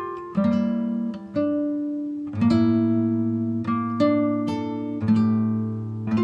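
Background music of plucked strings, slow notes and chords picked one after another and left to ring out.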